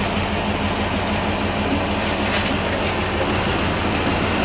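1978 Toyota FJ40 Land Cruiser's straight-six engine idling steadily, with an even low hum.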